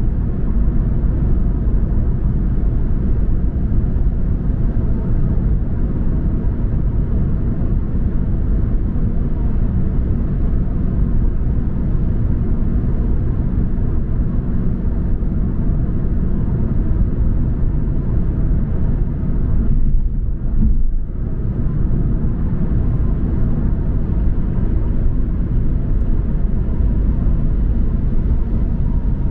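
Steady low road and engine rumble of a car driving, with a brief dip about two-thirds of the way through.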